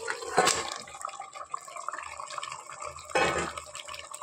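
Marinated chicken tipped from a steel bowl into hot oil and cooked tomato masala in an aluminium pressure cooker, sizzling and bubbling, with two louder splashes about half a second in and a little after three seconds in.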